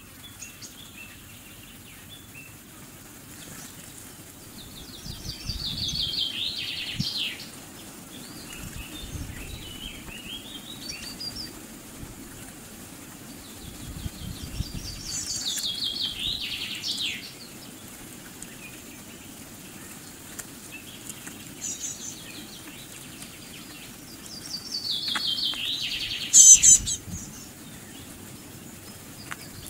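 A songbird sings the same trilled phrase three times, about ten seconds apart; each phrase is a rapid run of notes falling in pitch over about two seconds. Near the end there is a short, sharp, loud burst, over a low steady outdoor background.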